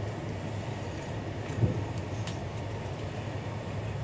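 Steady running noise of an express passenger train heard from inside the coach, wheels rolling on the rails with a low hum, and a single sharp knock about one and a half seconds in.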